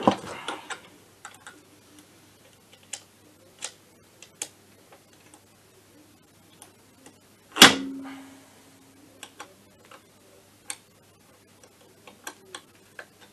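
Metal tools and parts clicking and clinking against an MBK Spirit scooter engine's casing during bench work on the kick-start side, with a quick run of clicks at the start and one loud metallic clank about seven and a half seconds in that rings briefly.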